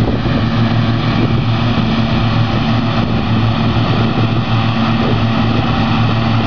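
Fendt 930 tractor's six-cylinder diesel running steadily under load while mowing with a front and butterfly mower combination, mixed with a second Fendt tractor hauling a forage wagon alongside: a loud, even engine drone with a deep steady hum.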